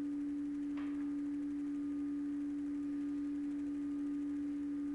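A steady hum at one unchanging pitch, with a faint short sound just under a second in.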